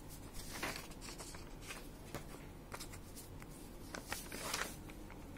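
Paper notebook pages rustling as they are handled and turned, with two longer rustles, one near the start and one about four seconds in, among light paper clicks.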